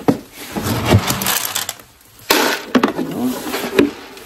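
A metal scoop scraping into pelleted goat feed in a plastic barrel and tipping the pellets into a plastic feed pan, with sharp clicks and a pouring rattle of pellets.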